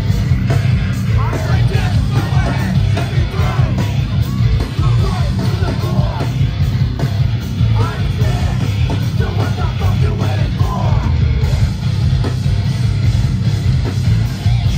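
Hardcore punk band playing live: loud distorted guitars, bass and drums with a heavy low end, and a yelled vocal over them.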